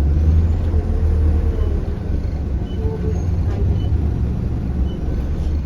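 Optare Solo M900 single-deck bus heard from inside while under way: a steady low engine and road rumble, with a faint high tick repeating about once a second.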